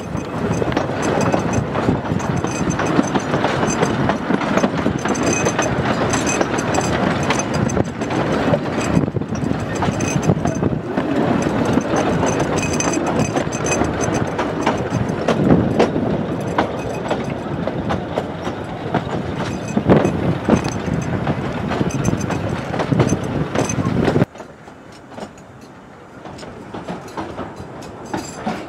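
Narrow-gauge heritage train coaches running along the line, a steady rumble with wheels clicking and clattering over the rail joints. About 24 seconds in the loud running sound cuts off abruptly and gives way to a much quieter rumble.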